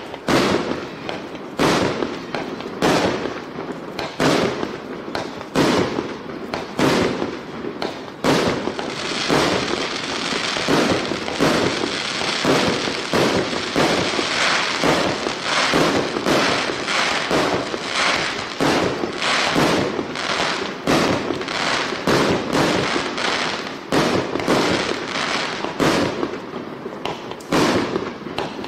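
1-inch, 48-shot fireworks cake firing shot after shot, about one to two sharp launches and breaks a second. From about eight seconds in to about sixteen seconds in, a dense crackle from crackling-effect stars fills the gaps between shots.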